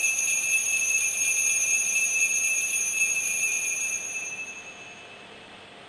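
Altar bells ringing continuously in a bright, shimmering jingle as the chalice is elevated at the consecration, then fading away near the end.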